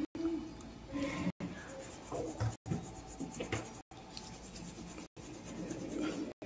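Colouring on paper: soft, irregular scratching and rubbing of a colouring tool on a card, broken by brief dropouts about every second and a quarter.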